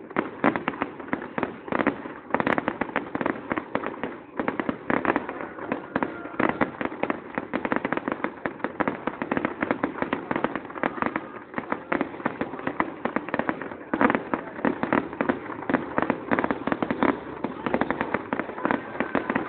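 Fireworks display: many shells bursting and crackling at once, a dense, rapid popping with no pause.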